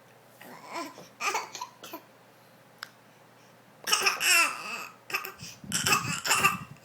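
A baby's forced, fake laughs and coughs: a short bout of little vocal bursts about a second in, then a louder, breathier run of them from about four seconds in.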